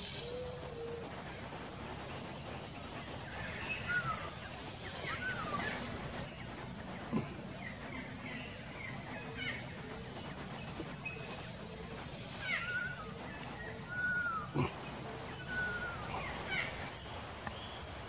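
Steady high-pitched insect drone, with a bird repeating short calls that fall in pitch every second or two.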